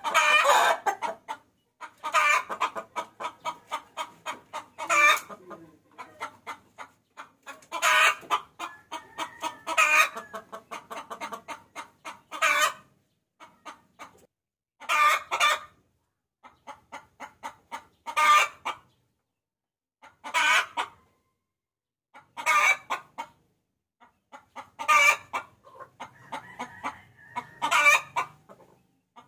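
Hen cackling: runs of rapid clucks that build into a loud squawking call, repeating about every two to three seconds. This is a hen's call to draw a rooster, played as a lure.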